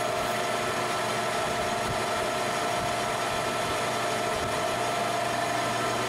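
Metal lathe running steadily, with a constant whine, while a vertical shear cutter takes a light finishing cut on a spinning bar of 1144 Stressproof steel.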